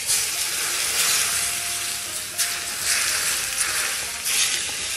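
Hot oil sizzling as it hits minced garlic, white sesame and chopped chili for a dipping sauce: a steady crackling hiss that swells again a little past halfway and near the end.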